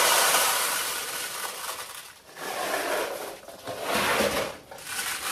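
Steel pachinko balls pouring into the upper hopper of a vintage Heiwa pachinko machine, a dense metallic clatter that fades over the first two seconds, then three shorter bursts of clatter as balls run down through the machine's channels.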